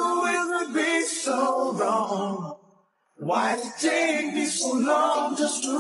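A song with a man singing, with little or no backing, breaking off for a moment about halfway.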